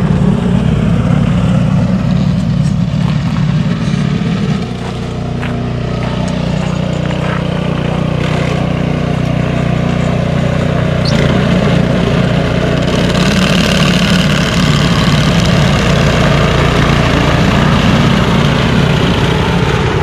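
Ventrac compact tractor's engine running steadily as the machine drives, a continuous low drone with road and wind hiss above it.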